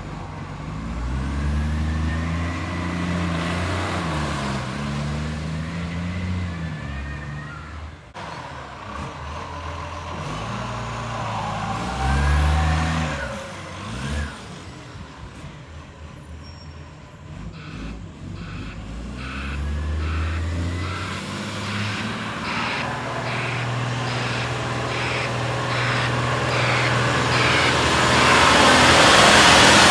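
Garbage truck's diesel engine revving up and dropping back several times, with the blatting of an exhaust leak. A loud hiss of air builds near the end.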